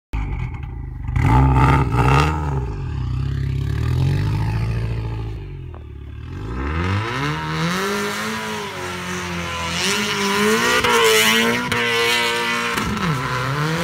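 Subaru Legacy GT's turbocharged flat-four revving hard as the car drifts in circles on snow, with the revs rising and falling several times. The note sags about six seconds in, then climbs and holds high, with the hiss of spinning tyres and snow spray, before a short dip and another rise near the end.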